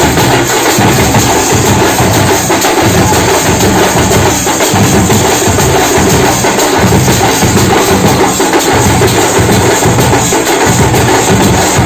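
Loud drumming on festival drums beaten with sticks: a dense, steady, driving rhythm of many hard strokes that keeps going without a break.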